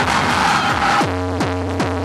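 Electronic dance music. A hissy build-up gives way about a second in to a steady beat, about two and a half hits a second, under sustained synthesizer chords.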